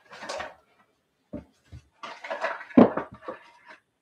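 Rummaging among hard objects: irregular clatter and knocks, with two short dull thumps about a second and a half in and the loudest knock near three seconds in.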